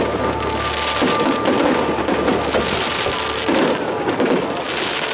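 Fireworks crackling and popping continuously, swelling in repeated waves, with music playing underneath.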